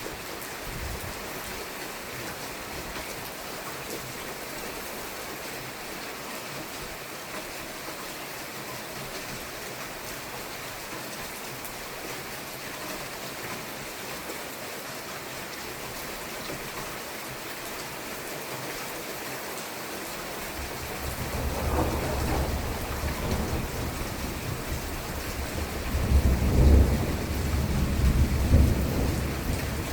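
Steady rain falling, then a long, deep rumble of thunder that starts about two-thirds of the way through and swells, loudest near the end.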